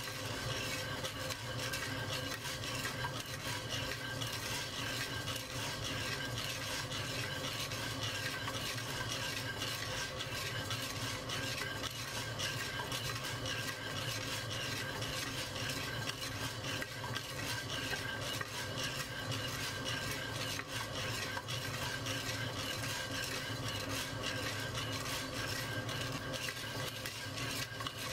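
Coffee beans being stirred in a ceramic pot while they roast, a steady dense rattling and scraping of beans against the pot, with a steady low hum underneath.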